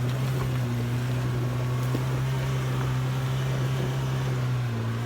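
Mahindra MM550 jeep's engine running hard at a steady, constant pitch, dipping slightly near the end.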